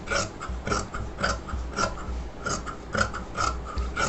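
Scissors snipping through fabric, cutting a pocket piece along a chalk line: a steady run of crisp snips, about two a second.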